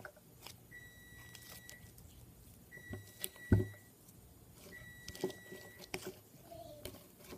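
Three steady high electronic beeps, each about a second long, with a loud thump about three and a half seconds in and a few soft clicks between them.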